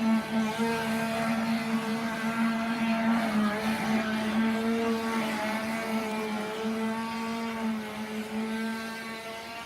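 Traxxas radio-controlled boat's 20-turn electric motor running with a steady whine, its pitch wavering slightly up and down with the throttle.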